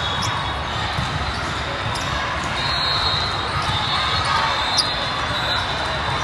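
The steady din of an indoor volleyball hall: volleyballs bouncing and being struck on the hard court floor, with one sharp smack about five seconds in, over a background of overlapping voices.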